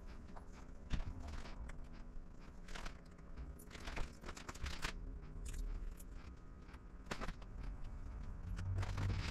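Clear paint protection film crinkling and crackling faintly as it is handled and pulled around a hood edge, in scattered short ticks.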